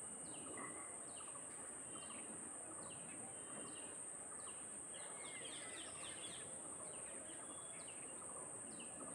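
Faint small birds chirping in the background, short falling chirps repeated a little under twice a second, over a steady high-pitched hiss.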